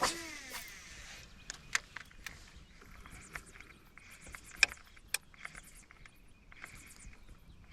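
A fishing reel's spool whirring down on a cast, its pitch falling over about half a second. Then scattered sharp clicks and short splashy hisses as the lure is worked back across the water.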